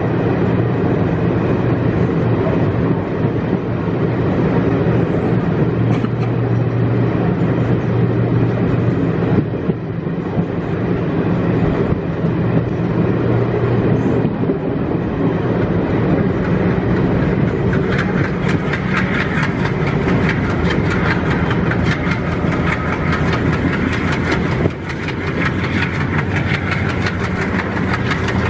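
Passenger train running at speed, heard from the coach: a steady rumble of wheels on rail under a low drone from the ALCO WDM3D diesel locomotive hauling it. About two-thirds of the way through, a rapid clickety-clack of the wheels over the track sets in and carries on.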